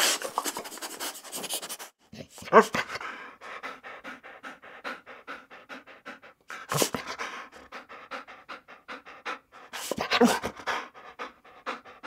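A dog panting fast, broken three times by a short, louder cry; the first of these cries is the loudest.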